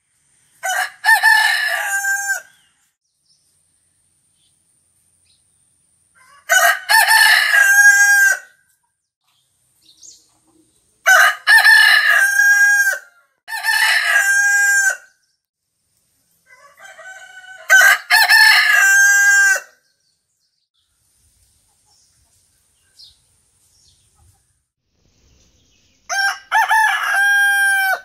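Roosters crowing one after another, six crows of about two seconds each, every one ending on a long held note, with silent gaps between them.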